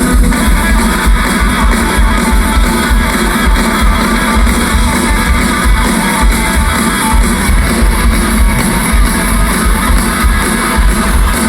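Rock band playing live: electric guitars strummed over bass and drum kit, loud and dense without a break.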